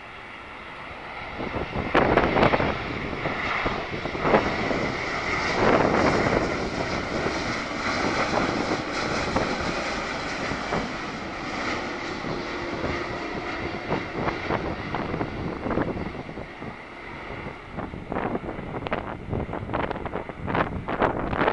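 Boeing 787 airliner's GEnx turbofans passing low overhead on landing approach: jet noise swells in about a second and a half, is loudest with a steady whine over the next several seconds, then slowly fades. Wind gusts buffet the microphone near the end.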